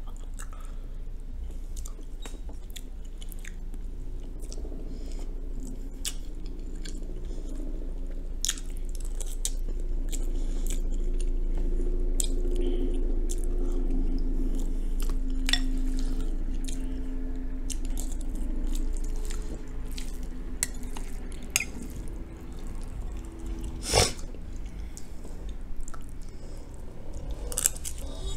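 Close-up eating: wet chewing and small mouth clicks from a mouthful of smothered cabbage and rice, with light spoon sounds against a glass bowl. A low steady hum rises in the middle, and there is one sharp clink near the end.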